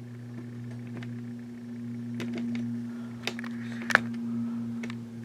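Steady low electrical hum, with scattered light clicks and one sharper click about four seconds in.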